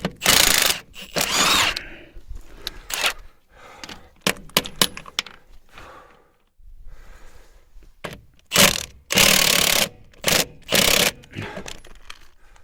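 Milwaukee impact wrench hammering in short bursts: two right at the start, then about four more in quick succession near the end, with clanks and scraping of metal parts between.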